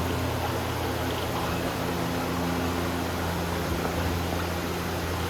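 Steady rushing water with a low, even hum, from the ride boat moving along its water channel.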